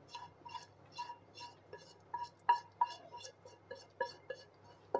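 Spatula scraping thick semolina barfi mixture out of an aluminium kadhai: a faint, quick run of light metallic clinks, about four a second, with a few louder knocks.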